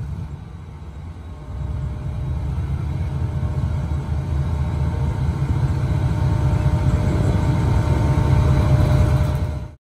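Diesel locomotive engine throttling up as the train starts to pull out, a deep steady rumble that grows louder from about a second and a half in and keeps building. It cuts off suddenly just before the end.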